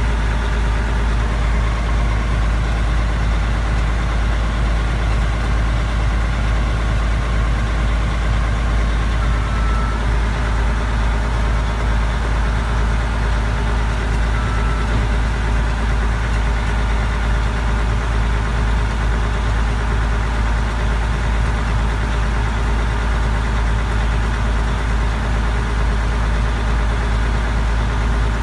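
Mack R600 truck's diesel engine idling steadily, heard from inside the cab.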